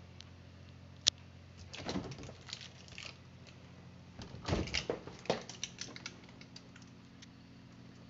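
Plastic drawers and shelves of a Samsung 4-door Flex refrigerator being handled: a sharp click about a second in, then clusters of knocks and rattles around two seconds in and again from about four to six seconds in, over a steady low hum.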